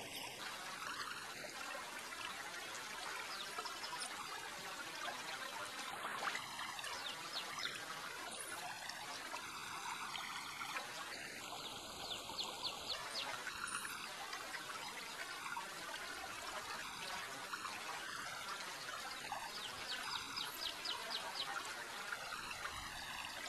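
Shallow creek water trickling steadily, with scattered faint ticks and short chirps over it.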